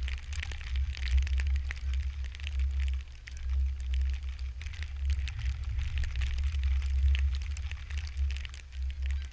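Wind buffeting the microphone in a low, uneven rumble, with a steady light crackling patter over it.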